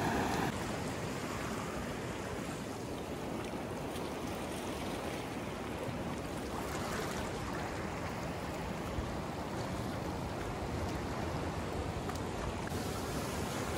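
Steady rush of surf on a beach.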